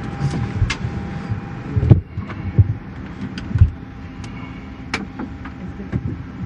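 Steady hum of an airliner cabin's air and ventilation system, with scattered knocks and clicks of handling; the loudest knocks come about two seconds in and again around three and a half seconds.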